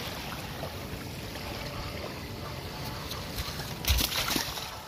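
A boat moving on open water: a steady rush of water and wind noise, swelling into a louder rush about four seconds in.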